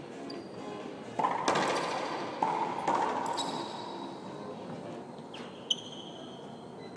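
Racquetball being struck around an enclosed court: four sharp smacks within about two seconds, each ringing on in the court's echo. Later come a couple of short high squeaks, typical of court shoes on the hardwood floor.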